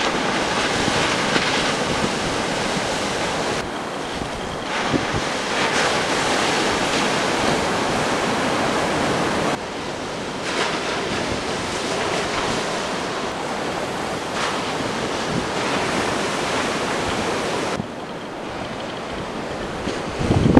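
Steady rushing noise of surf and wind buffeting the microphone. The level drops and rises abruptly a few times.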